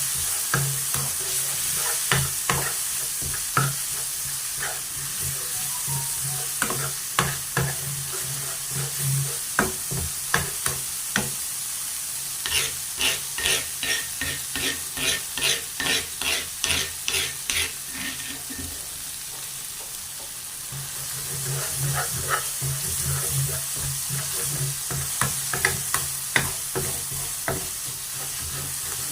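Food sizzling in a hot pan while a spatula stirs and scrapes against it with scattered clinks. About halfway through comes a run of quick scraping strokes, about three a second, lasting several seconds.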